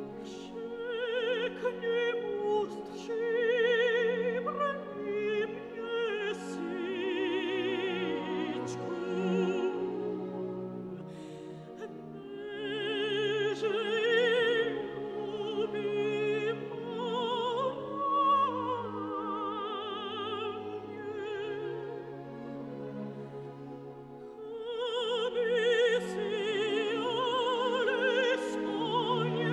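Soundtrack music: operatic singing with strong vibrato over an orchestral accompaniment, easing off briefly twice.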